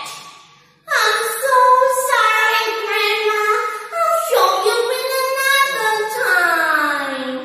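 A girl singing alone without accompaniment, starting about a second in with long held notes, some wavering, and sliding down on the last note.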